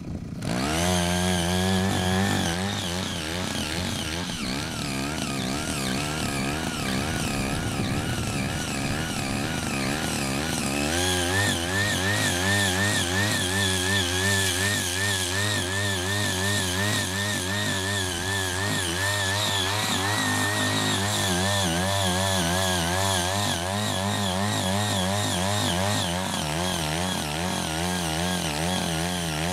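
CHING YEE CY80 mini cultivator's small engine running under load while its rotary tines till and weed hard fallow soil, the engine speed wavering up and down as the blades bite. It picks up sharply about half a second in and then runs loud and continuous.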